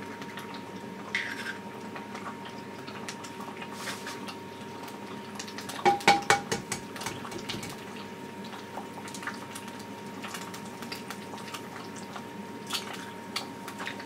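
Eggs frying in hot oil in a nonstick pan, sizzling with scattered small crackles. About six seconds in, a quick run of sharp knocks as an egg is cracked on the pan's rim.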